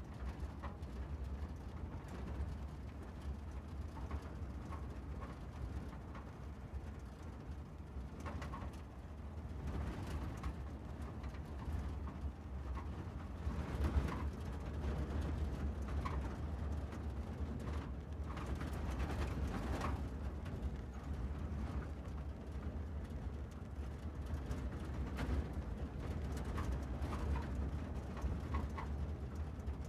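Car driving, with a steady low road-and-engine rumble that swells for a few seconds near the middle. Short faint high chirps come now and then.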